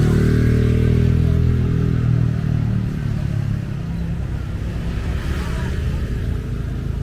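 A motor vehicle engine running close by, a steady low drone that is loudest for the first two seconds or so, then fades into a rougher low rumble.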